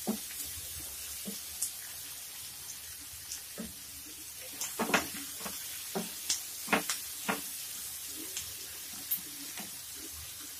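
Sliced onions sizzling in hot oil in a non-stick pan while a spatula stirs them, with sharp knocks of the spatula against the pan now and then, most of them around the middle. The onions are being fried toward golden brown.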